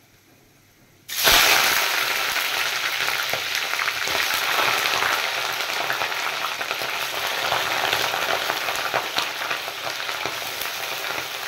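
Raw chicken pieces going into hot oil in a kadai: a sudden loud sizzle about a second in, then steady frying sizzle that eases slightly toward the end.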